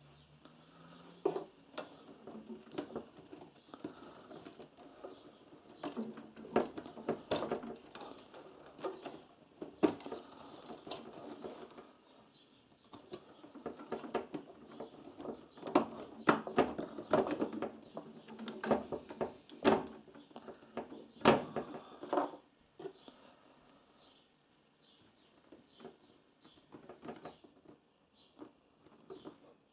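Hands working at a MIG welder's front panel to get the on/off switch out: irregular clicks, scrapes and small knocks of plastic and metal. Busiest in the middle, thinning out near the end.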